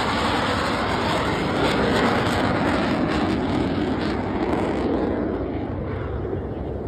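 Jet engine noise from a Blue Angels F/A-18 Super Hornet just after a low pass, fading and sinking to a deeper rumble as it flies away.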